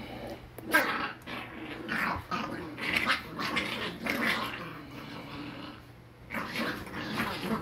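Corgi puppies play-fighting, growling in short, irregular bursts, with a quieter lull about five seconds in.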